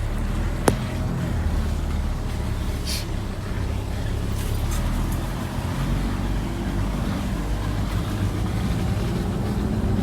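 Truck engine running steadily, with a single sharp click just under a second in and some brief light rattling a few seconds later.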